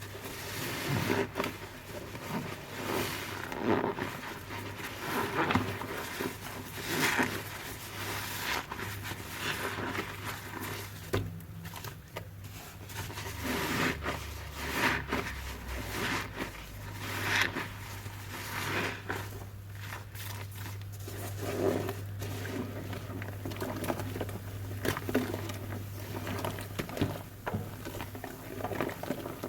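Soapy sponge full of dish detergent and Cif being squeezed over and over, wet foamy squelching and crackling that swells with each squeeze every second or two.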